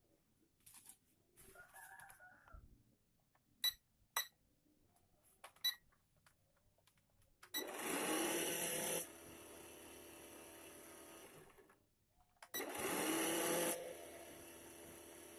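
Small electric motors with propellers spin up with a rising whine, run loud for about a second and a half, then drop to a quieter steady hum. This happens twice. A few light clicks come before.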